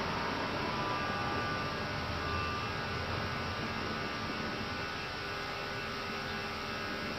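Steady cockpit noise of an Airbus A320 in its initial climb just after takeoff: engine and airflow noise with a faint steady hum.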